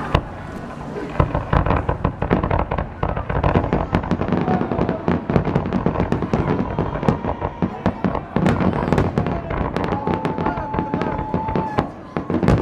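Fireworks finale: a dense, continuous barrage of rapid bangs and crackles, many per second. A steady whistling tone rises over the bangs about ten seconds in and lasts a couple of seconds.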